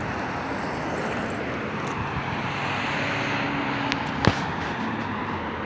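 Steady hum of engine and traffic noise, with a single sharp click about four seconds in.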